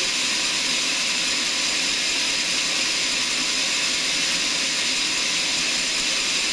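Sawmill saw running steadily, a constant hiss that does not change or break.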